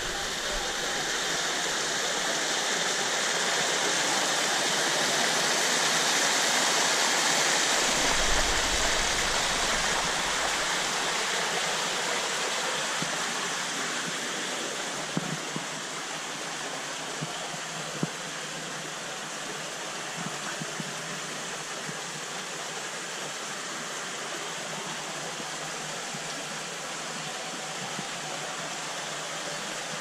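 Water from a small cascade rushing and splashing over rocks as a steady noise. It is loudest for the first ten seconds or so, then eases to a softer, even flow.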